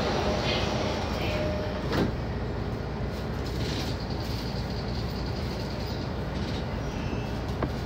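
Steady mechanical hum inside the driver's cab of a Keihin-Tohoku Line E233-series commuter train, with a sharp click about two seconds in and another near the end.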